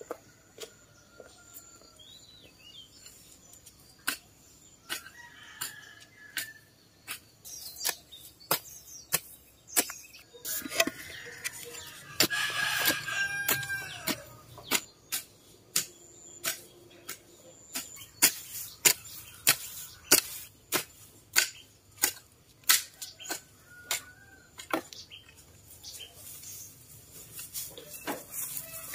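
A hoe chopping into soil, sharp strikes repeated at a steady pace of roughly one every second in the second half. A rooster crows about twelve seconds in.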